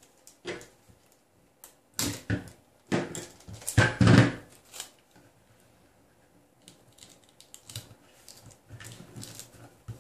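Kapton tape being pulled off its roll in several short rasps, the longest and loudest about three to four seconds in. Then faint ticks and rustles as the strip is laid over the wires and pressed down on the PCB heatbed.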